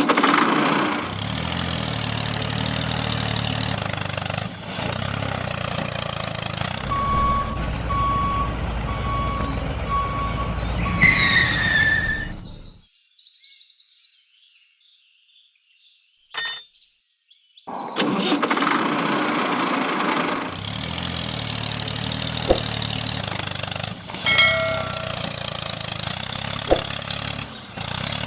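A truck engine running steadily, with a row of short evenly spaced beeps like a reversing alarm about seven seconds in. The engine fades out about thirteen seconds in, and after several nearly quiet seconds it comes back and runs on steadily.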